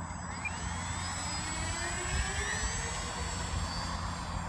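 Electric brushless motor and propeller of a small RC warbird (FMS 750mm A6M3 Zero on a 3S battery) throttling up for a takeoff roll: a high whine that starts suddenly, with its pitch gliding up and down as the throttle changes.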